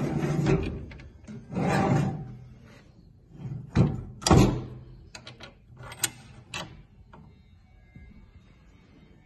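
Sliding steel guard doors of a surface grinder being run along their track twice with a rushing scrape, then pushed shut with a run of sharp knocks and clacks as they meet and latch; the loudest knock comes about four seconds in. The grinder itself is not running.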